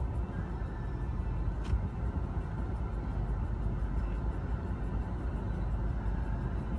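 Steady low rumble of a car on the move, heard from inside the cabin: engine and road noise. There is one faint click a little under two seconds in.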